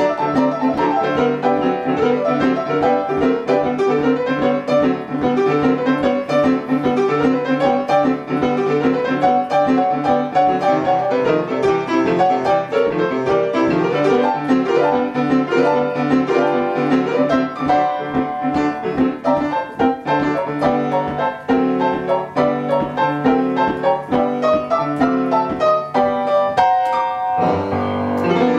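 Upright piano playing a boogie-woogie solo: a steady repeating left-hand bass figure under busy right-hand figures. Near the end there is a quick run of high notes, then the bass stops.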